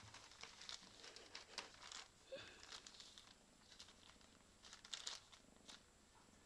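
Faint, irregular crinkling of a thin clear plastic bag as a cat noses and paws at it, with another cat lying inside the bag.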